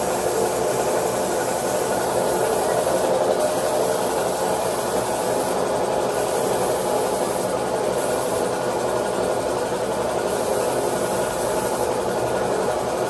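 Gravity-feed paint spray gun hissing steadily, with an air compressor running, as red paint is sprayed onto motorcycle body panels.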